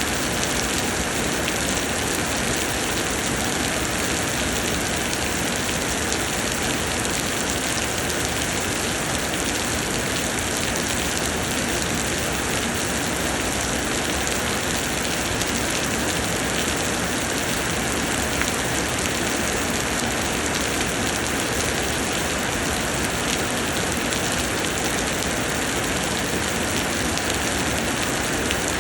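Summer rain pouring down steadily: a dense, even hiss of drops that neither builds nor lets up.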